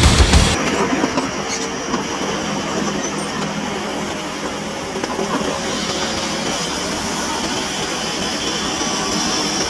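Music cuts off about half a second in, leaving heavy construction machinery running steadily: an engine with a hissy, even noise and little bass.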